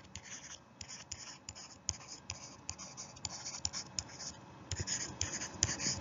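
A pen scratching in short, irregular strokes, with light clicks in between.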